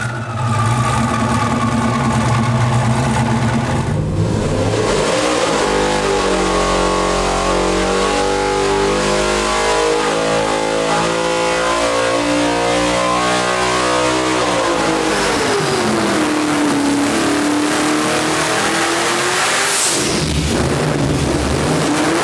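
Hennessey Fury 6.6-litre twin-turbo V8 running. It holds steady for a few seconds, then revs up hard, its pitch climbing and falling back over about ten seconds, then dips and rises again near the end.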